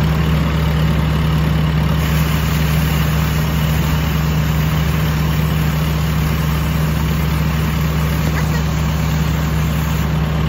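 Tymco 600 regenerative street sweeper running steadily, its engine and blower making a strong, even low hum with a broad rushing noise over it, while the gutter broom spins on gravel.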